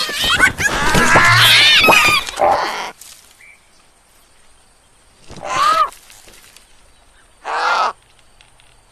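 Animal calls: many high, wavering cries overlapping for the first three seconds, then two single harsh calls a couple of seconds apart.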